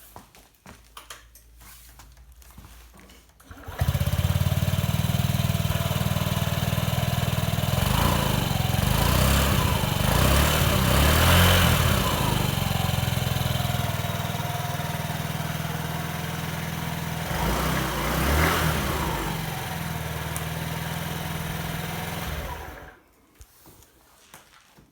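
Honda Ruckus 50cc scooter's four-stroke single-cylinder engine on its stock exhaust, cold-started. It catches about four seconds in, idles, is revved up and down a few times, and shuts off shortly before the end.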